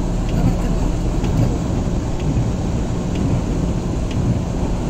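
Heavy rain on a car heard from inside the cabin, a steady low rumble as the car drives through a flooded street, with scattered sharp ticks of drops hitting.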